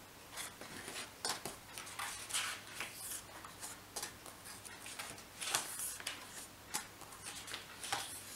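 Sheets of cardstock in a paper pad being handled and turned over: crisp rustles and flicks of stiff paper at uneven intervals.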